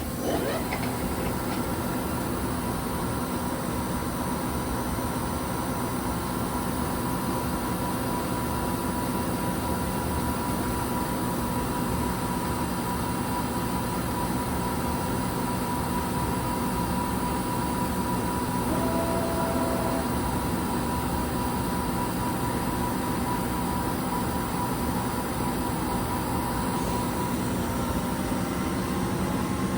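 2007 Romi M-27 CNC lathe running under power: a steady machine hum with a constant whine, and a short knock at the very start.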